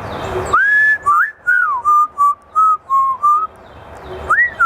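African grey parrot whistling a string of clear notes: a long rising note, then a quick run of short notes at about the same pitch, a pause, and a rising-falling note near the end. A brief rushing hiss comes just before the first note.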